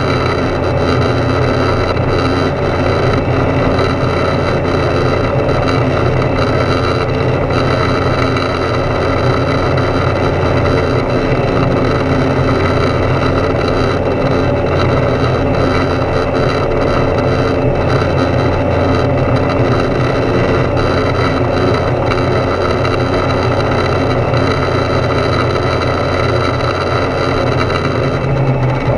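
Foxbat A22LS light aircraft in cruise, heard from inside the cockpit: its Rotax 912 flat-four engine and propeller give a steady, loud drone with an even low hum, mixed with airflow noise.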